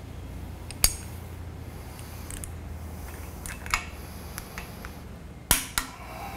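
Torque wrench and socket on steel flange bolts: a few sharp metallic clicks, loudest about a second in and a close pair near the end, as the bolts are brought up to final torque.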